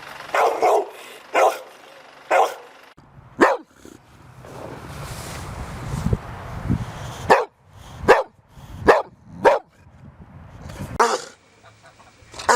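Dogs barking in short single barks, more than one dog, the bark changing character after a cut about three seconds in. A stretch of low rumbling noise sits between the barks in the middle.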